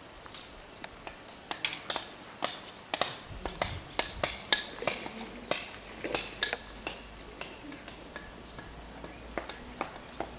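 A run of sharp, irregular clicks and clinks, two to four a second, thinning out after about seven seconds.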